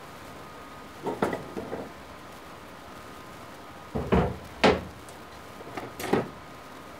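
Household knocks and clunks in three short clusters: about a second in, a louder pair around four seconds, and another around six seconds.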